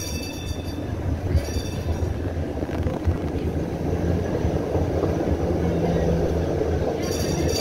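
Moving streetcar heard from inside the car: a steady low rumble of the wheels and running gear on the rails. Short high-pitched tones come in right at the start, about a second and a half in, and again near the end.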